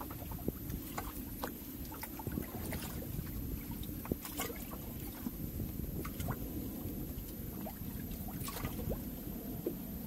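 Water washing against a boat's hull at sea: a steady low rumble, with many short, sharp splashes and clicks scattered through it.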